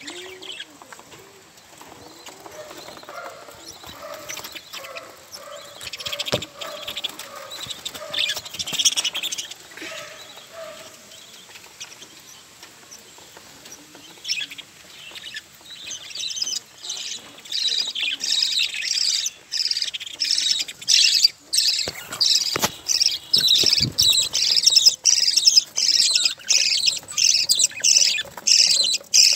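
Budgerigars chirping and chattering. Scattered calls in the first half build from about halfway through into a fast, loud run of high chirps.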